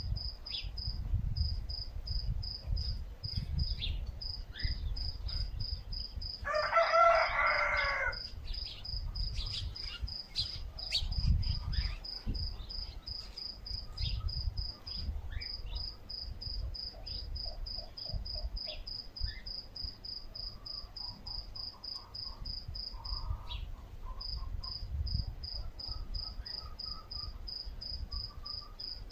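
A cricket chirping in a steady, even pulse, with a rooster crowing once about seven seconds in, scattered bird chirps and a low rumble underneath.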